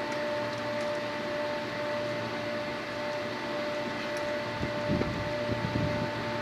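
Steady hum of running HVAC machinery with a few constant tones in it, and a handful of low bumps about five seconds in.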